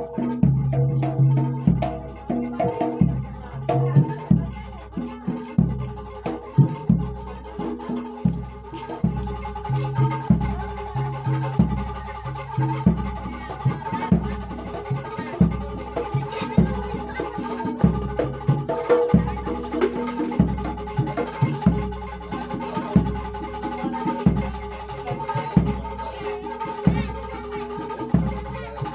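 Jaranan Dor ensemble music: a large jidor bass drum beats steadily about once a second under quicker smaller drum strokes and held pitched tones.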